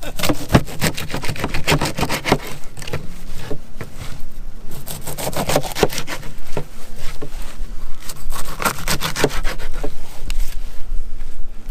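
A knife sawing through cut bait on a cutting board: rapid, irregular back-and-forth strokes with a rasping scrape.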